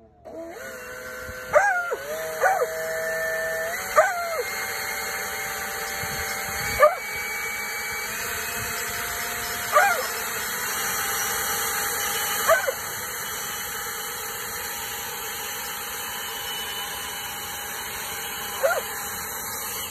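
DeWalt 60V battery leaf blower starting up, then running steadily with a motor whine over rushing air. A beagle lets out about seven short, sharp barks at it.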